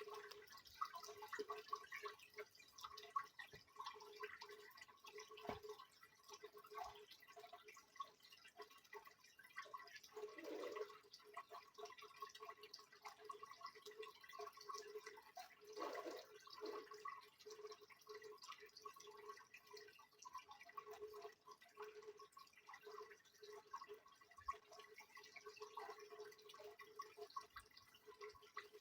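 Faint water sloshing and dripping in a Soviet washing machine during a wash, over a steady hum, with a couple of stronger splashy swells partway through.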